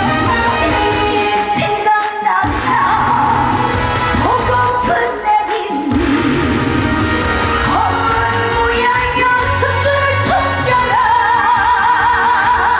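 A female trot singer sings with heavy vibrato over a live band playing an upbeat trot accompaniment.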